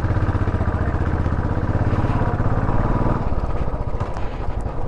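Royal Enfield Classic 500's single-cylinder engine running under way, a steady rapid low thump from the exhaust. Its deep beat lightens a little past three seconds in.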